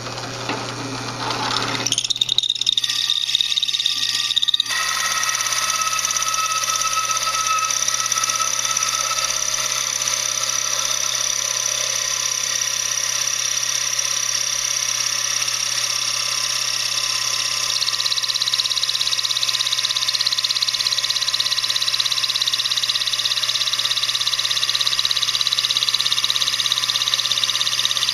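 Drill press running with a hole saw: a steady motor hum, then about four to five seconds in the saw bites into a thick oak board and a steady cutting noise joins it, boring out a round wheel blank.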